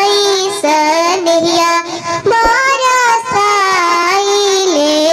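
Sohar, a Bhojpuri folk song for childbirth, sung in a high, child-like voice: long held notes that bend and step between pitches, with short breaks for breath.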